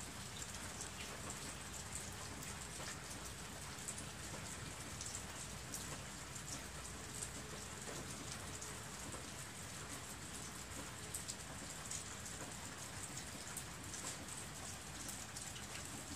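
Steady rain falling: an even hiss with many small, sharp drop ticks.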